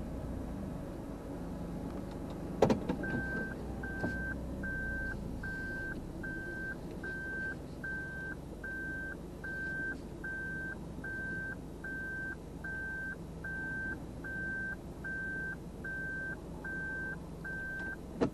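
A car's in-cabin reversing warning beep, a single-pitched beep repeating evenly a little more than once a second, starting about three seconds in after a sharp knock, over the steady low hum of the car running at parking speed.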